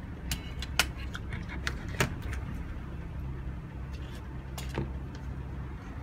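Scattered light clicks and taps of small hard laptop parts being handled: the removed cooling fan, the motherboard and its heatsink picked up and set down. A steady low hum runs underneath.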